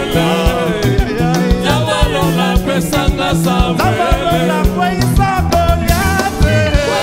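A live band plays upbeat Congolese-style gospel music: a drum kit keeps a steady fast beat under electric guitar, bass and keyboard, with voices singing over it.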